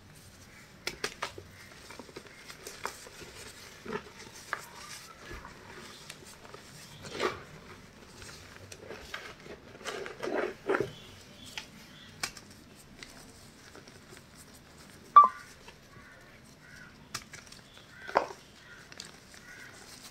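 Hands crumbling small moulded powder blocks and squeezing and pressing handfuls of fine white powder: soft, irregular crunches and crumbles, louder around the middle, with one sharp crack about fifteen seconds in.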